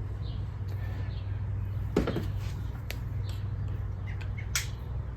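A few sharp clicks and light clinks of small metal engine parts being handled, the strongest about two seconds in, over a steady low hum.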